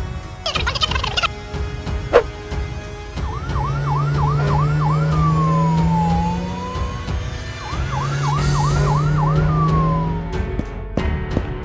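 Fire-engine siren sound effect: a quick yelping warble, about three sweeps a second, that turns into a slower falling and rising wail, heard twice over a low steady drone. Near the start there is a brief squeaky, chattering cartoon voice.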